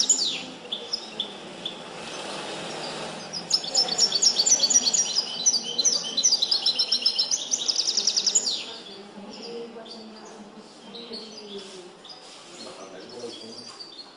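Caged European goldfinch singing its tutored limpio song: fast trills of rapid high notes, loudest from about three and a half to eight and a half seconds in, with softer, scattered notes before and after.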